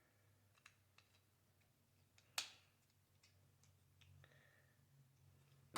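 Faint clicks of plastic model-kit pieces being handled and fitted, with one sharp click about two and a half seconds in.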